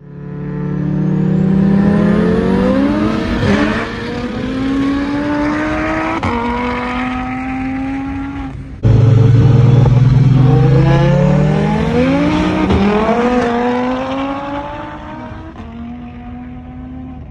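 Single-turbo BMW 335is N54 engine heard from inside the cabin under full acceleration, its pitch climbing and then dropping at each quick dual-clutch upshift. The run cuts suddenly a little past halfway, then climbs again through another shift.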